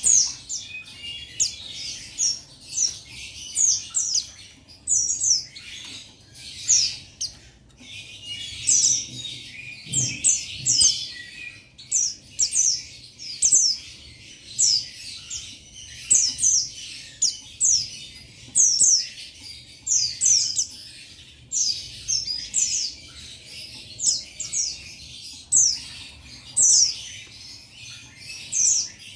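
Buxtoni white-eye (pleci) singing a long, unbroken run of quick, high, down-slurred twittering notes, several a second with only short pauses: the male's full 'ngalas' song used to call out rivals. A single low knock about ten seconds in.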